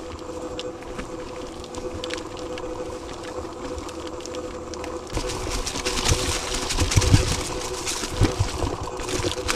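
Mountain bike riding along a dirt trail: tyre and rattling noise over a steady hum, with scattered clicks. It turns louder and rougher about five seconds in, with more hiss and low knocks.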